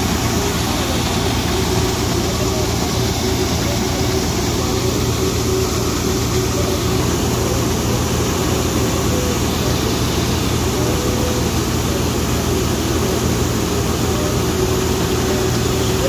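New Holland combine harvester running steadily under load, its engine and threshing machinery making a continuous heavy drone while the unloading spout blows chaff out onto the ground.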